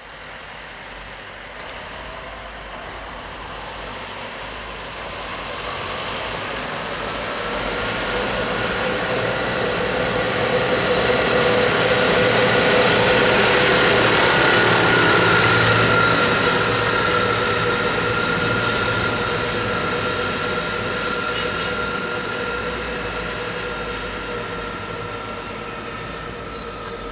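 Case tractor driving past on the road. Its diesel engine and tyre noise build as it approaches, are loudest about halfway through as it passes close, and then fade. A steady whine runs through it and drops slightly in pitch as the tractor goes by.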